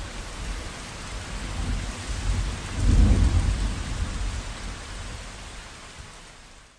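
Steady rain with thunder, a deep rumble swelling about three seconds in, the whole fading out near the end.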